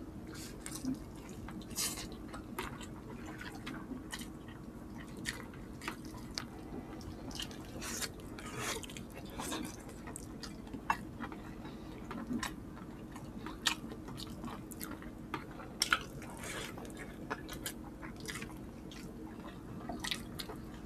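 Close-up eating sounds of two people chewing creamy chicken pastel and rice eaten by hand: irregular wet mouth smacks and chewing clicks, a few a second. They run over a faint steady hum.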